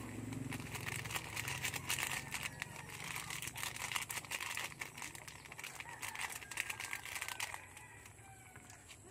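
Plastic seasoning sachet crinkling as powdered sinigang mix is shaken out of it into a pot of boiling broth. The crackling stops about seven and a half seconds in, leaving a low steady hum.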